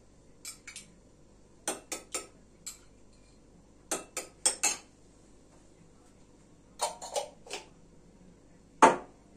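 Metal spoon clinking against a small jar and a ceramic bowl while sauce is scooped out, in quick clusters of two to four clinks, with one louder knock near the end.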